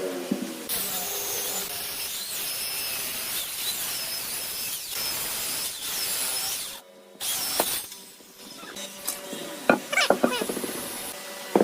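A power tool working wood, a steady high-pitched hiss that breaks off briefly about seven seconds in. Near the end comes a run of sharp taps and clicks.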